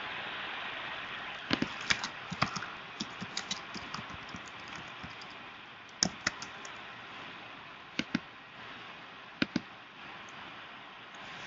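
Computer keyboard keys clicking in short quick runs and scattered pairs, over a steady hiss.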